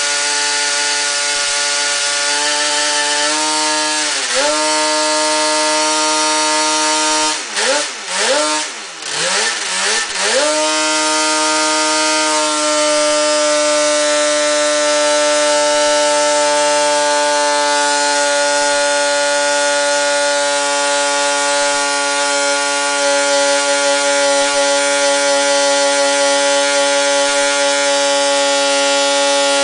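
Rotax 354 two-stroke twin snowmobile engine running at high revs under dyno brake load during a maximum-power pull. The revs dip sharply and recover about four seconds in, dip and recover several more times a few seconds later, then hold steady.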